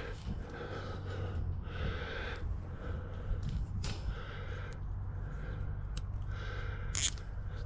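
Heavy, rhythmic breathing: short breaths less than a second apart over a steady low rumble, with one sharp click near the end.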